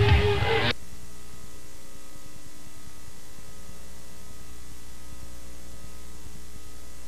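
Music cuts off less than a second in, leaving a steady electrical mains hum with hiss in the videotape recording's sound.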